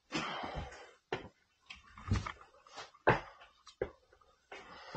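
People clambering through a rock cave passage: scattered scuffs, knocks and breaths in short separate bursts, with near-silent gaps between them.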